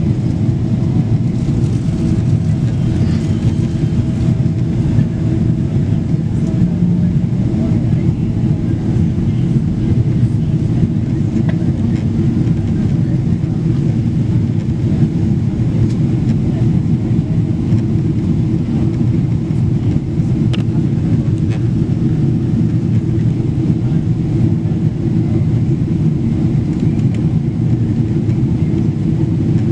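Steady cabin noise of a Boeing 777-200LR in its climb after takeoff, heard inside the cabin: the deep, even rumble of its GE90 turbofans at climb power mixed with the rush of air past the fuselage.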